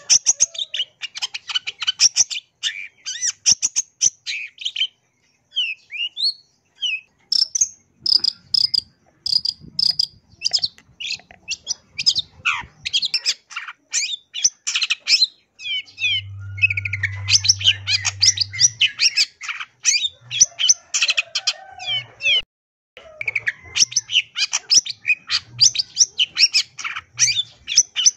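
Long-tailed shrike (cendet) singing a fast, dense song of rapid chattering notes and quick slurred whistles, full of mimicked phrases (isian), broken by a couple of short pauses.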